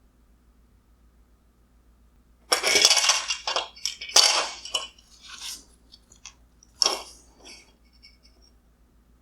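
Hard parts clattering and clinking as they are handled and set down on a surface, a run of rattles starting about two and a half seconds in, loudest in the first two seconds, with a last sharp knock near the end.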